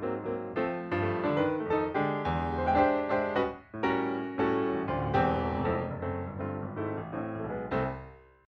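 Background music led by piano, a run of struck notes that fades out near the end.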